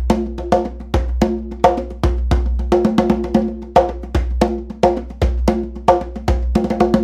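Hand drum played with bare hands at a fast tempo of about eight strokes a second. The rhythm is varied and built around a 3-3-2 pattern, with sharp strokes that ring on a few steady drum tones.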